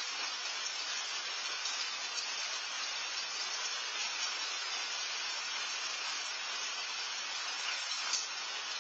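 Steady rain falling, a continuous even hiss with a few faint ticks.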